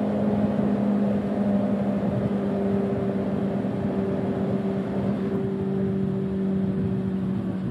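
Honda CB400SF inline-four engine with a Yoshimura slip-on exhaust running at steady revs while cruising through a road tunnel. The exhaust note holds one even pitch and eases off slightly in loudness.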